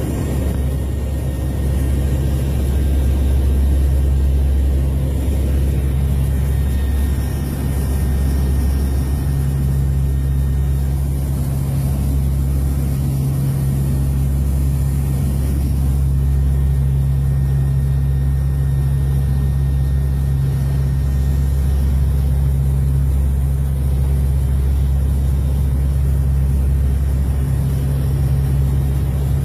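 Turboprop aircraft's engines and propellers droning steadily, heard inside the cabin, with a deep low hum.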